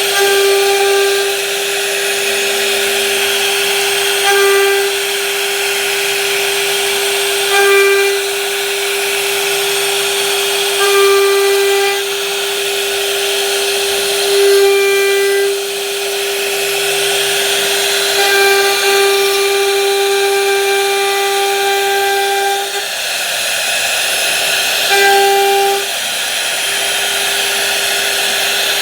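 Electric power tool running with a steady high whine. It grows louder and harsher for a second or so every few seconds, with a longer stretch near the middle.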